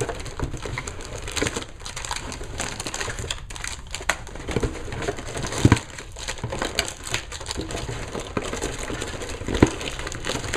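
Foil booster packs and clear plastic figure packaging crinkling and crackling as they are torn open and handled, with a steady run of small crackles and two sharper snaps, one about halfway through and one near the end.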